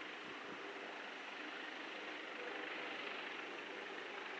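Steady distant mechanical drone with a hiss, the background noise of an airport, with no distinct events.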